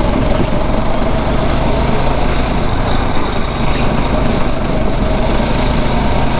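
Small single-cylinder engine of a 9 hp rental kart running at speed on track, holding a fairly steady note.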